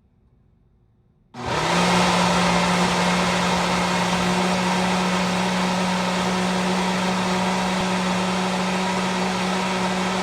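Ninja blender switched back on a little over a second in after a brief pause, then running steadily at one constant pitch while grinding a thick frozen smoothie mix with dates.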